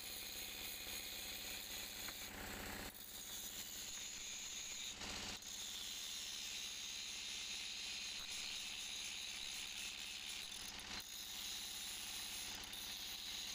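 Handheld angle grinder cutting into the steel of an excavator bucket, running steadily with a high grinding hiss of disc on metal.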